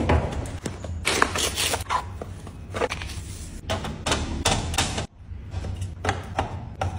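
Irregular light clicks and knocks as eggs are set one by one into a refrigerator door's plastic egg tray and packaged items are put onto the door shelves, with a brief break about five seconds in.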